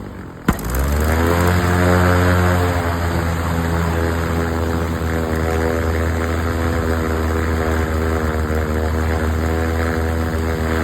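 Light aircraft's piston engine and propeller running steadily, after a sharp click about half a second in; the engine note climbs a little at first and then holds level. The aircraft is plausibly the Piper Lance being worked on for rough running.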